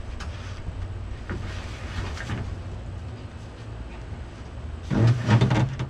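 A large truck hood being shifted about on a wooden trailer deck: light knocks, then a loud scraping grind about five seconds in, over a steady low rumble.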